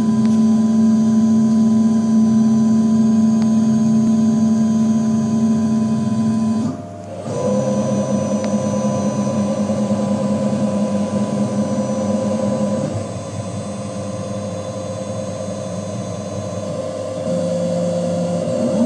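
Emco PC Mill 50 CNC mill running programmed axis moves: its drive motors give a steady pitched hum and whine. The pitch changes abruptly about seven seconds in, again around thirteen seconds, and once more near the end, as one move gives way to the next.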